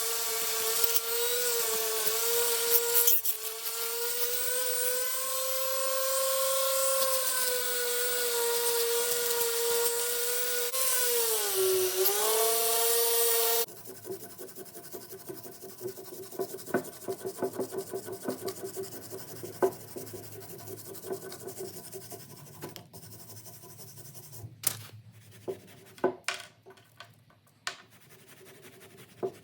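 A small high-speed power tool running with a steady high whine, its pitch sagging briefly about twelve seconds in as it is pressed harder into the work. It stops abruptly, and quieter rubbing and scraping follow, with scattered sharp clicks near the end.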